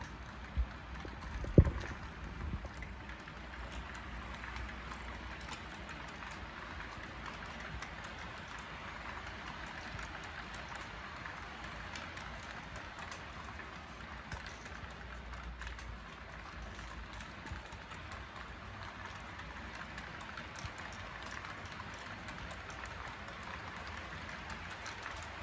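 HO scale model freight train of grain hopper cars rolling past: the wheels on the track make a steady rushing hiss scattered with small clicks. Two sharp knocks come near the start, the second the loudest sound.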